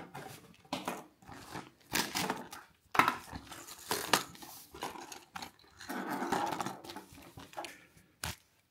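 Plastic blister packs of fishing lures being handled on a wooden table: an irregular series of clicks, clacks and crinkling rustles.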